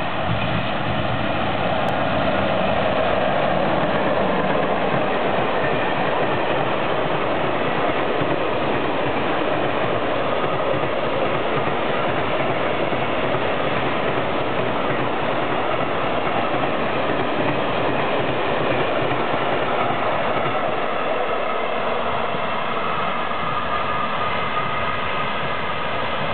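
MÁV class 630 electric locomotive hauling a long freight train of tank wagons past, with the steady noise of wheels rolling on the rails.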